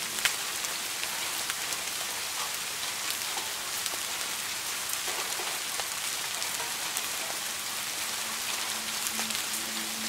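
Steady rain: a dense, even hiss full of small drop ticks, with one sharper tap just after the start. Soft low musical tones come in under the rain near the end.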